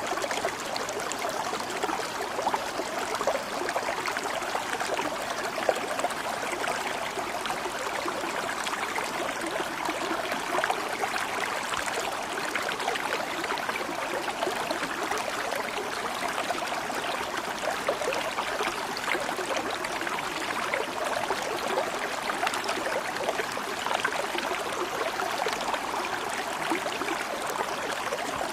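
Water flowing steadily in a stream, an even rushing and trickling with no breaks.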